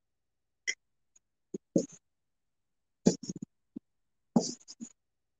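A handful of short taps and knocks, some in quick clusters, as a craft coaster and a paintbrush are picked up and set down on the work surface.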